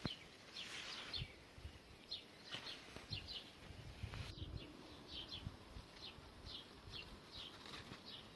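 A small bird chirping over and over, short high chirps a few times a second, with low thumps now and then.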